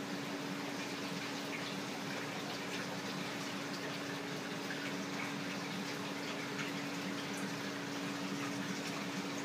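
Steady rushing and trickling of water circulating in a large saltwater reef aquarium, over a constant low pump hum.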